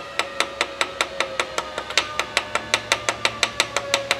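Rapid, light taps on a steel parallel clamped in a lathe chuck, about six a second, made with the wooden handle of a brush, each tap ringing with a clear metallic tone. The taps nudge the parallel until it sits square to the spindle.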